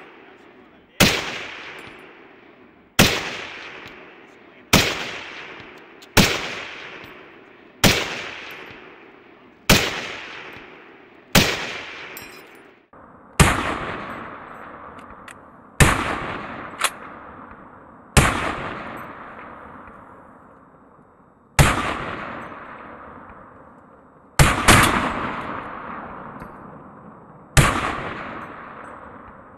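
M1 Garand semi-automatic rifle firing .30-06 Springfield rounds: about fourteen single shots at an unhurried pace, one to three seconds apart, each followed by a long fading echo. Near the end two shots come almost together.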